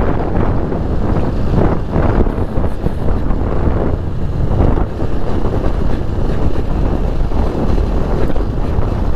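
A Bajaj Pulsar 220F motorcycle riding along a rough dirt road, its single-cylinder engine running under heavy wind noise on the microphone.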